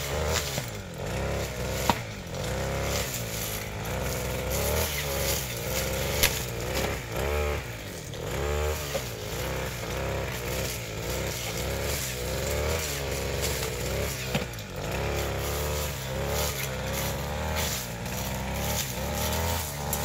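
Backpack brush cutter (grass trimmer) engine running while cutting, its speed rising and falling unevenly about once a second, with a rough snoring ("ngorok") sound whose cause the owner is asking about. A few sharp ticks come through, about two and six seconds in.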